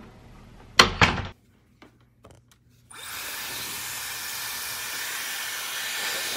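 Two loud knocks about a second in, then, after a short quiet spell, a Dyson Airwrap hair styler starts blowing about three seconds in: a steady, even rush of air.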